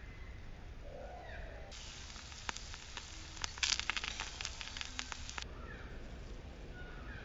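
Chicken dosa sizzling and crackling on a small hot iron griddle, starting about two seconds in and cutting off suddenly a few seconds later. Faint chirps are heard before and after it.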